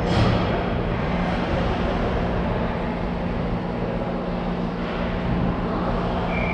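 Ice rink ambience during a hockey game: a steady low hum and even background noise, with one sharp crack right at the start and a brief high steady tone near the end.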